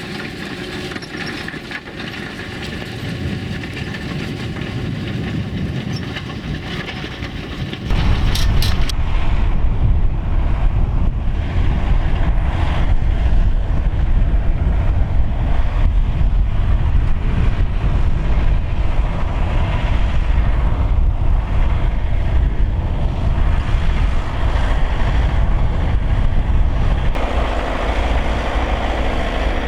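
Fendt 724 tractor's six-cylinder diesel engine working under load, pulling a five-furrow plough uphill. For about eight seconds the engine note is steady and slowly grows louder; then the sound jumps to a much louder, deeper rumble, with the higher tones gone.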